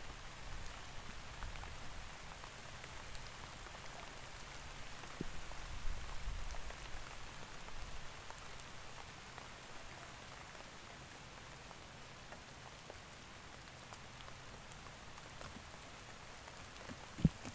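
Light rain falling on a river surface: a steady patter of small drops. A few soft low thumps come midway, and one sharp knock near the end.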